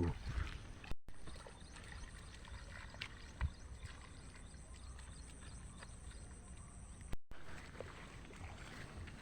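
Faint outdoor ambience of water sloshing, with a low rumble and a few small clicks. The sound cuts out abruptly twice, about a second in and about seven seconds in.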